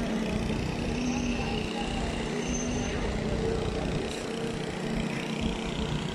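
Diesel engine of a truck-mounted concrete pump running steadily under load, a continuous low drone with a steady hum.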